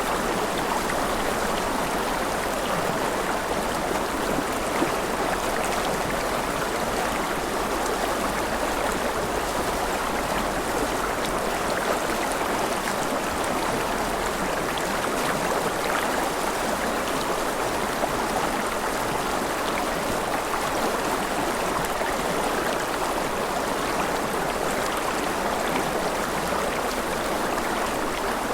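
River water flowing steadily over stones, a continuous even rush with small splashes and gurgles.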